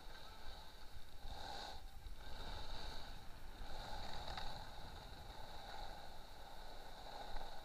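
Skis sliding and scraping over groomed snow. The hiss swells and fades several times.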